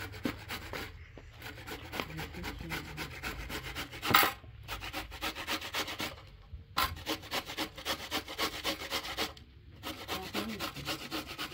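Fruit being grated by hand on a flat metal grater: quick, rhythmic rasping strokes in runs broken by short pauses, with one sharper knock about four seconds in.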